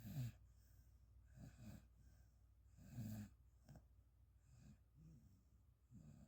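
Dog snoring faintly in its sleep: a low rattling snore with breaths about every one to one and a half seconds, the loudest right at the start and about three seconds in.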